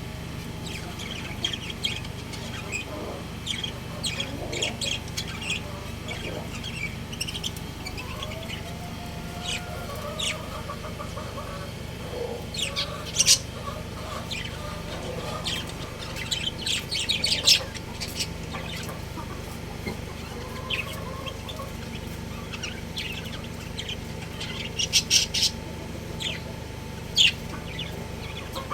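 Budgerigars chirping and warbling: many short, sharp chirps in irregular clusters, with a few louder calls, over a steady low hum.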